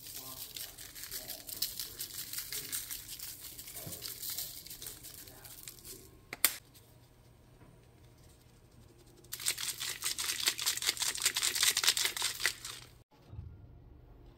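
Dense, fast crinkling and crackling in two stretches, the second one louder, with a single sharp click between them.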